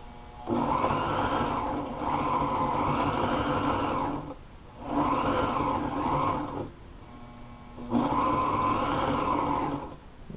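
Portable sewing machine running and stitching piping onto upholstery material in three runs of a few seconds each, its motor hum stopping briefly between runs.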